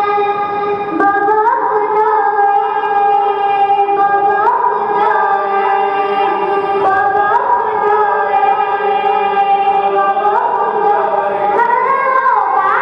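A boy's voice chanting a noha, a Shia lament in Urdu, in long drawn-out notes that slide upward every few seconds, over a steady held drone.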